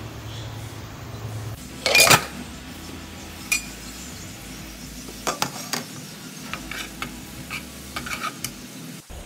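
Stainless-steel spatula scraping and clinking against a nonstick wok as minced beef is stirred, with the meat sizzling in oil underneath. One long loud scrape comes about two seconds in, followed by scattered short taps of the spatula on the pan.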